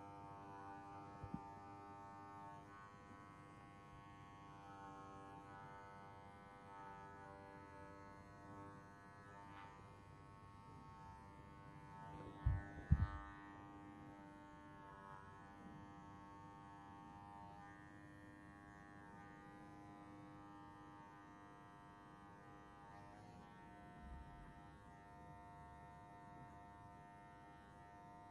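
Electric hair clippers buzzing steadily as they cut very short hair, with a few loud knocks about halfway through.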